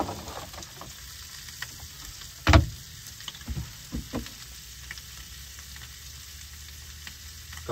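Mifu pieces sizzling in butter in a frying pan, with one loud knock about two and a half seconds in and a few fainter knocks soon after.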